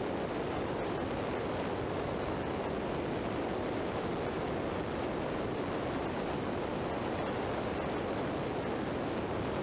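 Steady rush of wind and road noise on a camera mounted low on a motorcycle riding at highway speed. No engine note stands out above the rush.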